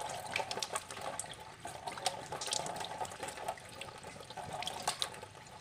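Water splashing and dripping at a sink as a face is rinsed, in irregular splashes over a faint steady wash of water.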